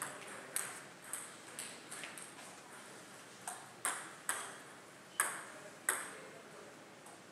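Sharp clicks of a table tennis ball on bat, table and floor, ringing a little in a large hall. Near the start a run of fading, quickening clicks, as of a ball bouncing to rest, is followed by a few louder single clicks spaced about half a second or more apart.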